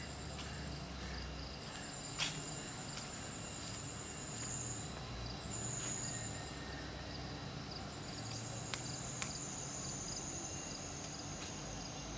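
Insects chirping: a high, steady trill that swells and fades in several stretches over a faint regular ticking. A few sharp clicks break in, the loudest about two seconds in and two more near nine seconds.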